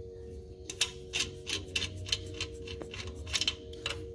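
Handling noise: irregular light clicks and rustles, about nine in all, over a steady faint hum.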